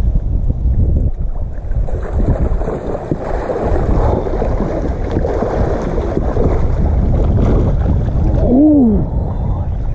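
Wind buffeting the microphone, with water splashing and churning from about two seconds in as a hooked northern pike thrashes at the surface.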